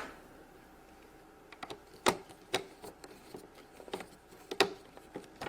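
Battery compartment of a plastic toy cash register being closed: a run of sharp, uneven plastic clicks and taps, two of them louder, starting about a second and a half in.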